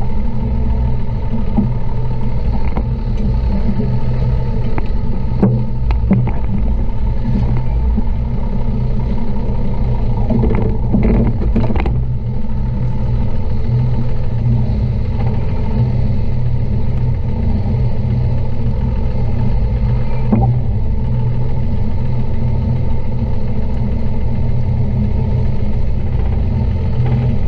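Toyota Land Cruiser 60 series driving a 4x4 track, its engine droning at steady revs, with occasional knocks and rattles over the bumps, several bunched together about halfway through.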